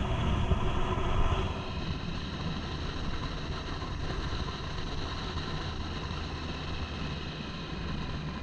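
Motorcycle engine and wind noise while riding, louder for the first second or so, then running steadily.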